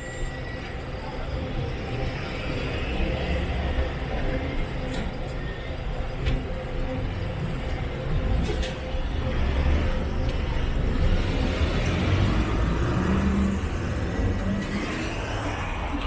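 City bus's diesel engine running close by, a steady low rumble over street traffic noise.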